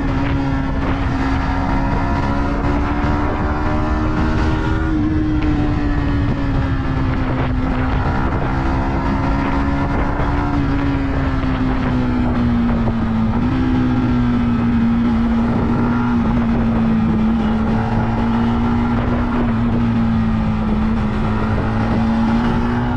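Yamaha MT-15 V2's 155 cc single-cylinder engine and exhaust running at a steady cruising speed. The engine note holds a steady pitch that drifts slowly, with a small rise about five seconds in and again about halfway through.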